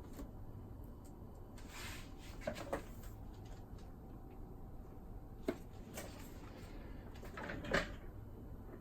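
Handling noises on a plastic boombox case being taken apart: a few sharp clicks and knocks with short scraping, the loudest knock near the end.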